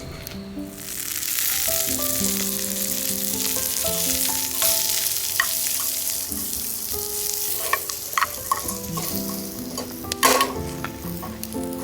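Food sizzling as it fries in a pan, starting about a second in, with a few sharp clicks, the loudest near the end. Gentle background music plays throughout.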